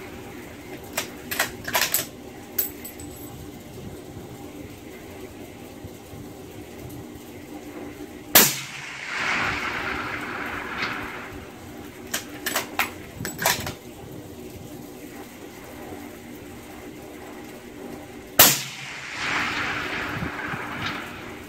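Scoped rifle fitted with a suppressor fired twice, about ten seconds apart. Each shot is followed by an echo rolling back off the range for a second or two. Between shots come short runs of metallic clicks as the rifle's action is worked.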